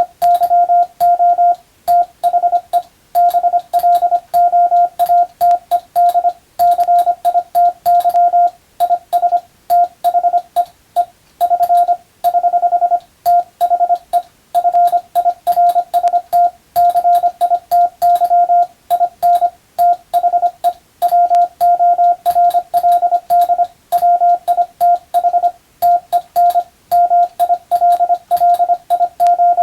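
Morse code (CW) sent as a single mid-pitched tone, keyed rapidly on and off in short dots and longer dashes with brief gaps between characters.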